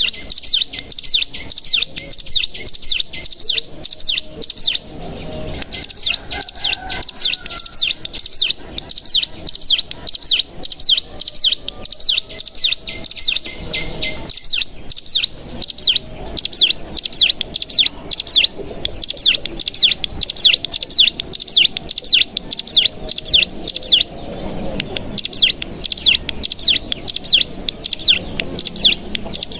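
Ciblek gunung (cigun) song: a fast, continuous run of short, sharp, falling chirps repeated several times a second, the rapid 'ngebren' trill, with brief pauses about five and fourteen seconds in.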